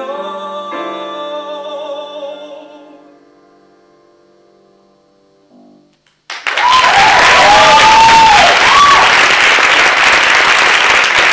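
A male singer holds the last note of a musical-theatre song over a sustained piano chord, which fades away by about three seconds in. After a short hush, the audience breaks into loud applause with cheers, about six seconds in.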